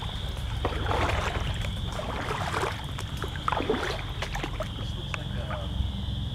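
Western chorus frogs calling in a dense, steady high-pitched chorus. Scattered rustles and knocks come from movement through brush and shallow water, over a low wind rumble on the microphone.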